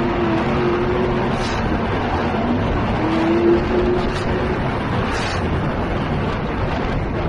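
The drift truck's Ford 5.0 V8 running hard under wind buffeting the hood-mounted camera's microphone, with the engine revving up about three seconds in.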